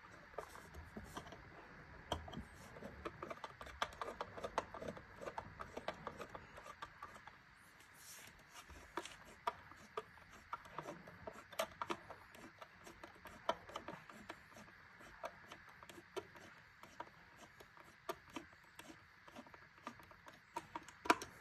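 Irregular small clicks, taps and rubbing of smart-lock hardware being handled and fitted to a door.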